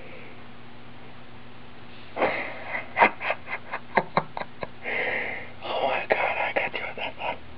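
A person's voice in short breathy bursts mixed with sharp clicks, starting about two seconds in over a faint steady hum.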